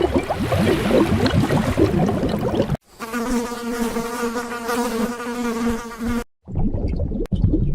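A flying insect buzzing with a steady hum of wingbeats. The sound cuts off abruptly twice, with rougher, irregular buzzing noise either side of the steady stretch.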